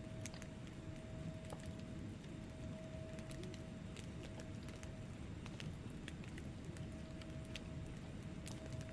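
Wood fire burning in a fireplace: a steady low rumble of flames with scattered sharp crackles and pops from the burning logs, a few each second.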